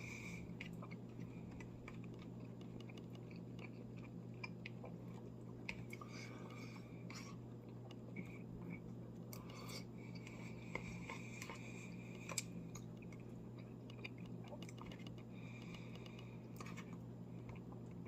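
Quiet eating: small clicks and scrapes of a utensil in a plastic meal tray, with chewing, over a steady low hum.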